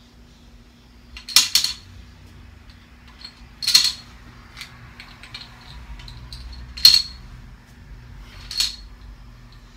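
Plastic Connect Four checkers dropped one at a time into the upright grid, each clattering down its column to land on the checkers below. Four drops about two seconds apart, the first a short rattle of several strokes.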